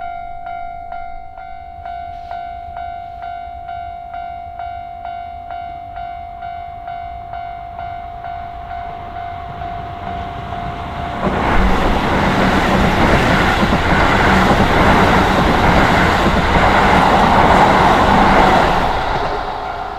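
Japanese level-crossing alarm ringing in a steady repeated ding, about one and a half strikes a second. About eleven seconds in, a Keisei Main Line train passes over the crossing. Its running noise is the loudest sound and drowns the bell for about eight seconds before fading.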